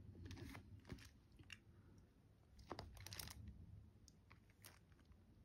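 Near silence: room tone with a few faint, scattered clicks and crackles, grouped about half a second in, at about one second, and between two and a half and three and a half seconds in.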